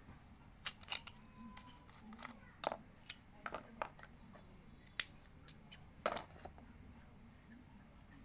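Light clicks and knocks of small plastic craft parts (a plastic bottle, a bottle cap with a pen refill through it, pens) being handled and set down on a hard floor: about ten sharp taps, irregular, over the first six seconds.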